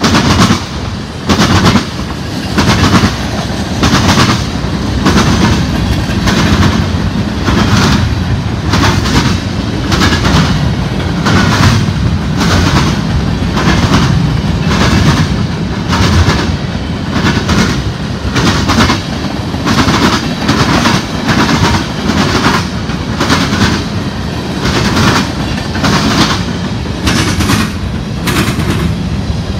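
Freight train of tank cars and covered hopper cars rolling past at close range, its steel wheels clacking over rail joints in a steady run of sharp clicks over a continuous low rumble.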